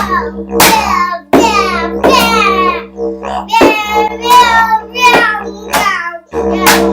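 Didgeridoo made from a plastic plumbing pipe, droning. The drone cuts off about a second in, again midway and again near the end, each time as the player stops to breathe because he is not circular breathing. A bottle beaten as a drum keeps a beat of about two hits a second, and high, downward-sliding vocal cries ride over the drone.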